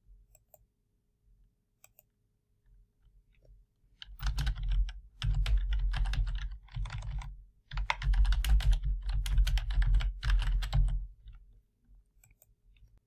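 Typing on a computer keyboard: a few single clicks, then a fast run of keystrokes in several bursts lasting about seven seconds.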